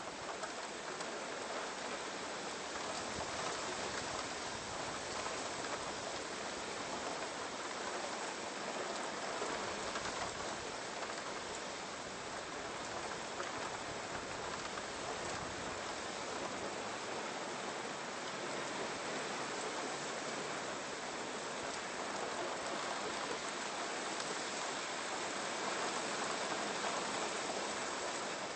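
Steady rushing sound of water, an even hiss without a beat or tune, swelling slightly near the end.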